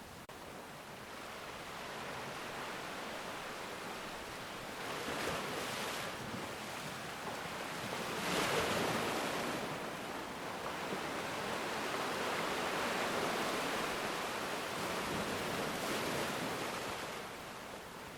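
Ocean waves washing ashore: a steady surf hiss that swells and ebbs, with the biggest wave breaking about halfway through.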